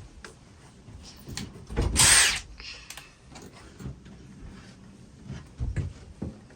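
Power drill run in one short burst of under a second, about two seconds in, followed by a few light knocks.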